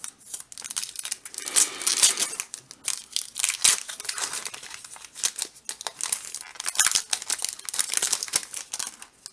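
Foil wrapper of a Pokémon trading card booster pack being opened by hand: an uneven run of crinkling and crackling with a few sharp snaps.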